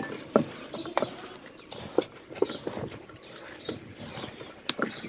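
A spoon scraping and knocking against an aluminium pot while it scoops a thick, sticky date halva mixture: irregular clinks and scrapes a few times a second.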